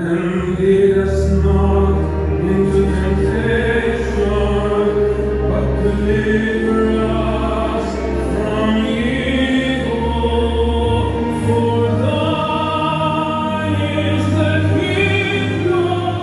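Choral music: a choir singing a slow, hymn-like song over instrumental backing, with long held notes.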